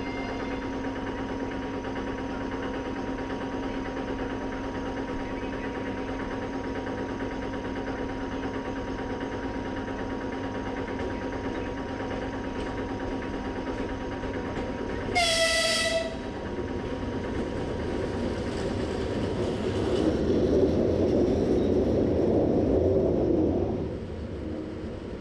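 Steady electric hum of trains standing at the platform, broken about fifteen seconds in by one short, loud blast of an electric locomotive's horn. An approaching train's rumble then grows louder and stops abruptly near the end.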